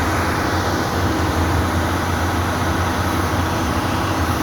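A steady engine running with a low, even hum under a broad noise.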